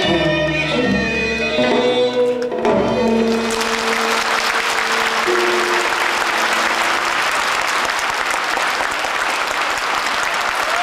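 Stage music ends on held notes a few seconds in and gives way to steady applause from a theatre audience, which carries on to the end.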